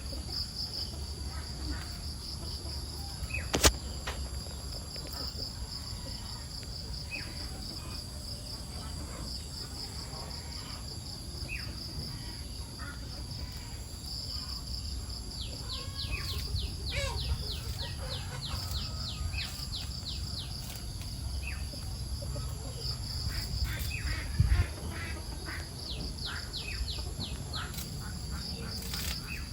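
Insects trilling steadily in a high pulsing drone, with runs of quick, short, falling chirps partway through and again near the end, and a couple of sharp knocks.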